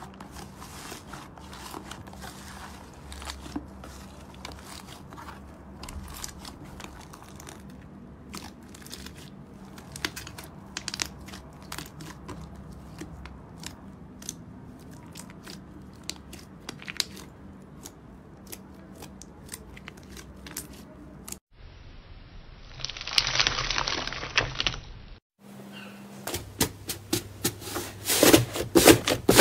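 Hands squishing and poking soft slime, with many faint crackles and small pops. Near the end, fingers press into a crunchy slime with a crisp top layer, giving loud, rapid crackling as the crust breaks. In between come a few seconds of dense crackling noise.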